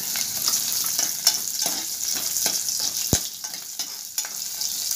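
Garlic cloves sizzling in hot oil in a steel saucepan while a steel spoon stirs them, clicking and scraping against the pan. One louder knock about three seconds in.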